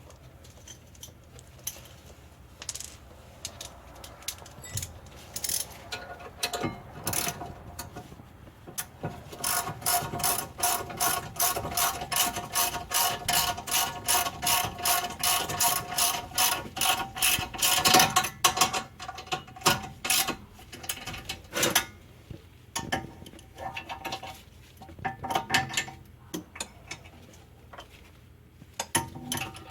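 Hand ratchet wrench clicking as it tightens the bolts of a rear brake caliper bracket. It clicks in a steady rhythm of a few clicks a second through the middle of the stretch, with scattered clicks and knocks before and after.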